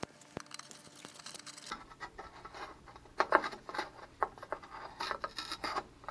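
Irregular clicks and scrapes of a screwdriver working at a stuck screw on an electric water heater's sheet-metal access panel.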